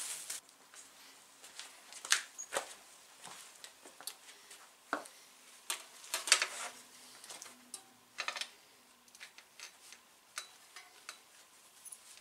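Irregular clicks, knocks and light rattles of a road bike's front wheel being handled and fitted into the fork, with hands working at the hub and quick-release skewer. A few louder knocks stand out among the lighter clicks.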